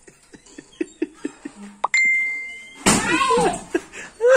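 An electronic doorbell sounds one steady tone for just under a second, about two seconds in. Right after it comes a loud cry with a falling pitch.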